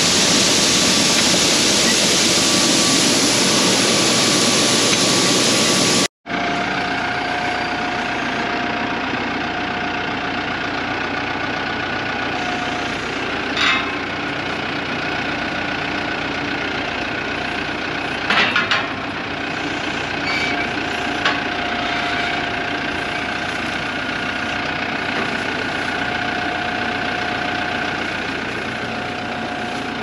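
For about six seconds, shelled corn pours from a grain truck into an auger hopper with a loud, steady rush. Then, after a cut, a loader tractor's diesel engine runs steadily with a faint whine, and a few short knocks come partway through.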